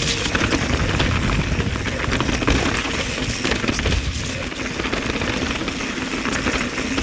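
Santa Cruz Bronson mountain bike being ridden over a rough, wet dirt trail: a steady rumble of tyres and wind with rapid, irregular rattling and knocking from the bike.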